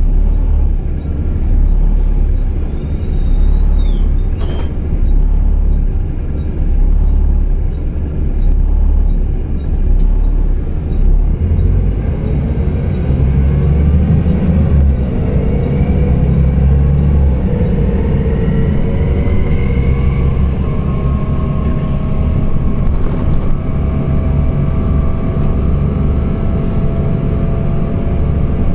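Volvo B7TL double-decker bus's engine and driveline heard from inside the passenger saloon while under way: a steady low rumble, with a whine that rises in pitch from about halfway through as the bus picks up speed, then holds at a steady pitch.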